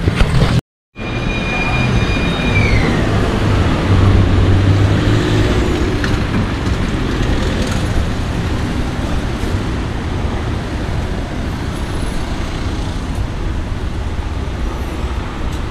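Steady loud rushing noise, most likely a handheld electric blower running continuously, with a low hum that strengthens about four seconds in. A brief high whine drops in pitch about two and a half seconds in.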